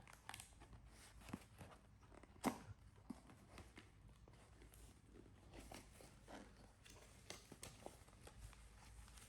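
Near silence with faint scattered clicks and rustles of a CCTV camera's cardboard box and packaging being handled and opened, one sharper click about two and a half seconds in.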